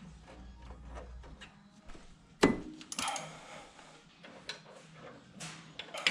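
Metal parts and hand tools being handled while a brake caliper is refitted: scattered clicks and knocks, with one sharp knock about two and a half seconds in and a short ringing metallic clink near the end.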